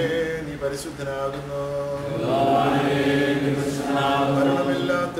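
A group of voices singing a slow liturgical chant or hymn together, with long held notes.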